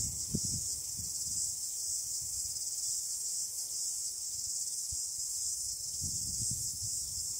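Steady, high-pitched chorus of crickets. A few soft low noises come just after the start and again about six seconds in.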